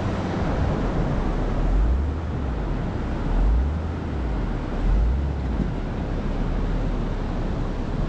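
Wind buffeting the microphone in low swells over steady ocean surf, with the engines of a Hummer H3 towing a Toyota Tacoma out of deep sand running underneath.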